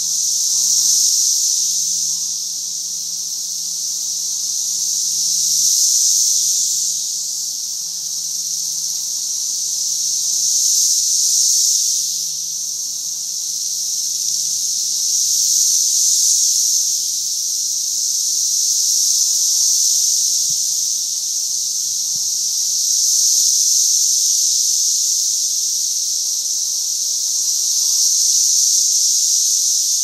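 Dense chorus of periodical cicadas: a loud, high buzzing hiss that swells and fades in waves about every five seconds.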